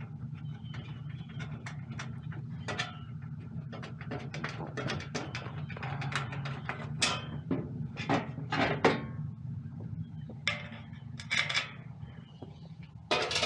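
Clicks, knocks and light metallic rattles of a furnace's sheet-metal panels and parts being handled, over a steady low hum.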